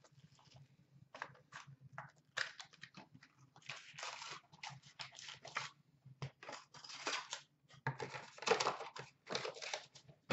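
Cardboard and wrapper packaging rustling and tearing as a box of trading cards is opened and the card stack slid out and handled: a string of short scrapes and crinkles, busiest after the first couple of seconds. A faint low steady hum lies underneath.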